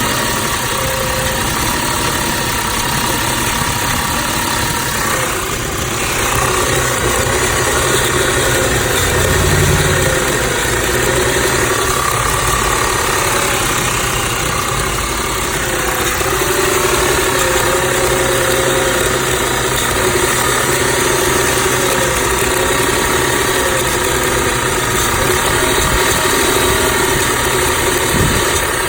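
2006 Audi A6 engine idling rough, its note wavering unevenly, with a brief low swell about ten seconds in. The owner suspects a faulty PCV valve.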